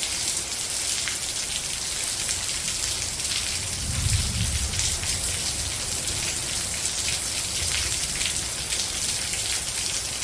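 Steady rain falling, with a constant hiss and fine patter of drops on a surface. A brief low rumble comes about four seconds in.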